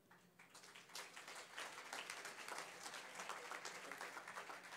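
Audience applauding, fairly faint, starting sparsely and filling in about a second in.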